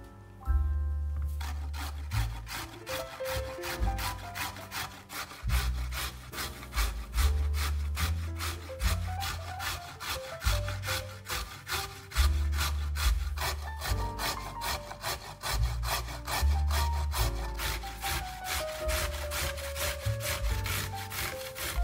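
Vegetable being grated on a hand grater in quick, regular scraping strokes, about four a second, over background music.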